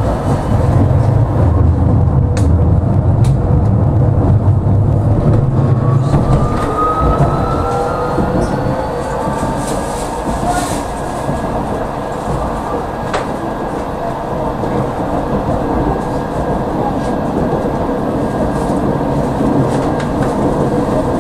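Tram running on its rails, heard from inside the car: a steady rumble of wheels on track, with a thin whine from the electric drive that rises in pitch as the tram gathers speed a few seconds in.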